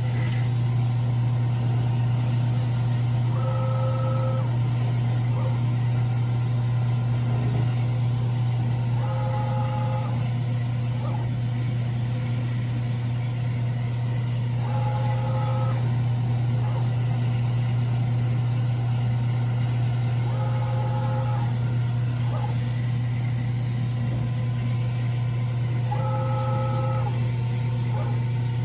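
A loud, steady low machine hum. Over it, an electronic beep of several tones at once sounds for about a second, five times, evenly spaced about every five and a half seconds.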